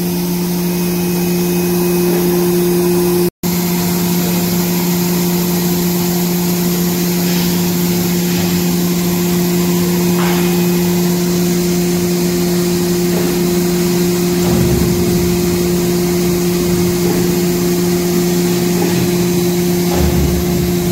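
Two-lane N-fold hand towel making machine running steadily: a loud, even hum with a constant mechanical rushing noise. The sound cuts out for an instant about three seconds in.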